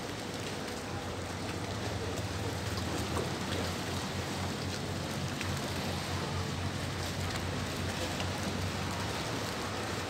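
Choppy sea water lapping and splashing against a pier, a steady rushing noise with a low steady hum underneath.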